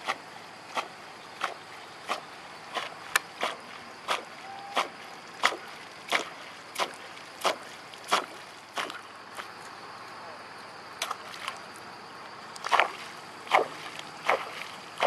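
Propeller topwater lure (Yara Devassa, 14 cm, 35 g) jerked across the water surface. Each rod twitch makes a short splashing chop, about three every two seconds, with a pause of about two seconds past the middle before the chops resume.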